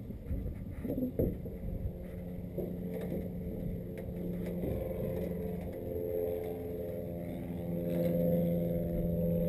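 A few knocks of handling on the aircraft's skin near the camera, then a light aircraft's piston engine running with a steady pitch, growing louder about eight seconds in.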